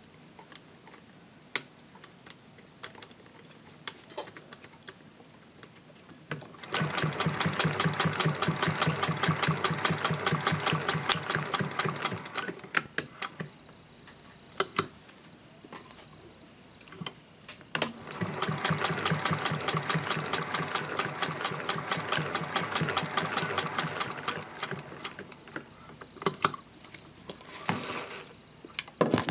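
Singer 201K hand-crank sewing machine stitching through fabric in two runs of about six and seven seconds, each a rapid, even clatter of needle and feed. Scattered single clicks come before, between and after the runs.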